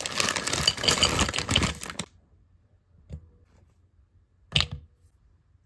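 Chunks of chocolate tipped from a packet clattering into a glass bowl for about two seconds, then stopping suddenly. A light knock and, about a second and a half later, a sharper knock on the glass bowl follow, each leaving a short ring.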